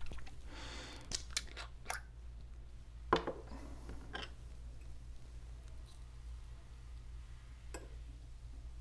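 A few light clicks and knocks as a glass ink bottle and a glass dip pen are handled on a wooden desk, the loudest knock about three seconds in.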